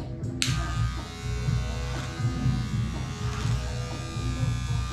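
Electric hair clippers buzzing steadily as they cut a man's hair. The buzz grows suddenly brighter about half a second in.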